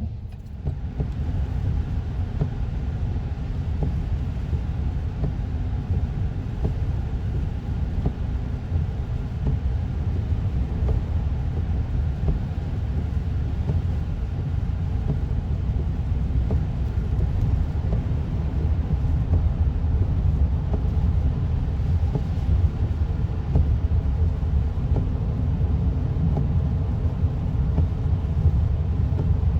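Steady road and engine rumble of a car driving on a wet road in heavy rain, heard from inside the cabin, growing slightly louder toward the end.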